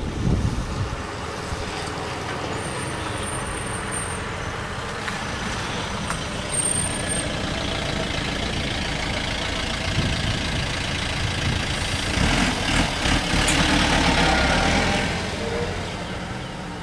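A motor vehicle's engine running steadily. It grows louder from about twelve seconds in, then fades away near the end.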